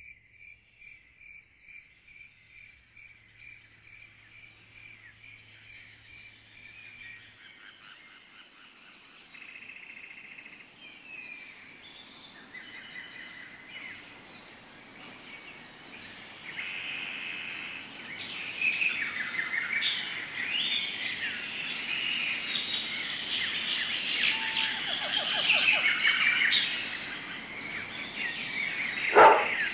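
Birds chirping and twittering over a steady high insect trill, starting with one evenly repeated call and growing busier and louder. Near the end a dog starts barking.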